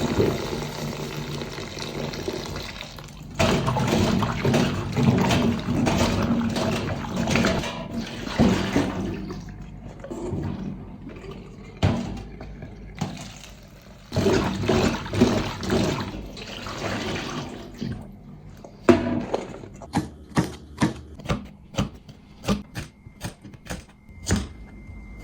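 Water running and splashing in uneven surges, as when food is washed under a tap. Near the end comes a quick run of about ten sharp knocks.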